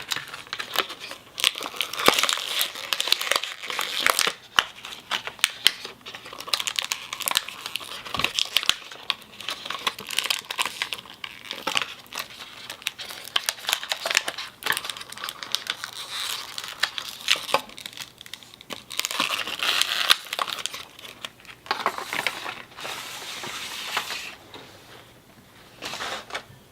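Plastic toy packaging crinkling and rustling in irregular handfuls as small toy figures are pulled out of it, with brief lulls.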